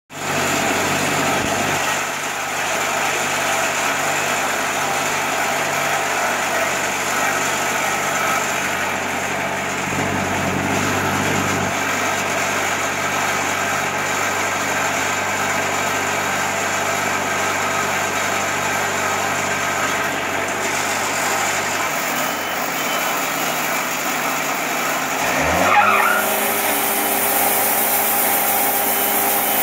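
Wood-Mizer sawmill's Kubota diesel engine running steadily, then revving up near the end with a rising pitch and settling at a higher steady speed.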